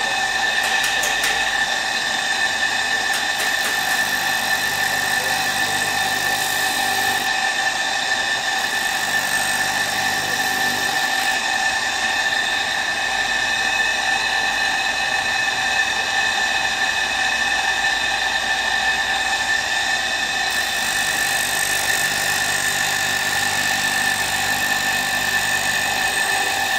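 Single-phase electric motor spinning a sandpaper disc, running with a steady high whine. A steel cleaver blade is ground against the sandpaper near the start and again near the end, adding a hiss over the whine.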